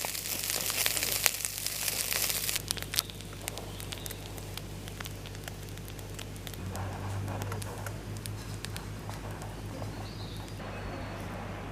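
Crinkling and rustling, loudest for the first two or three seconds, then quieter with scattered crackles and clicks.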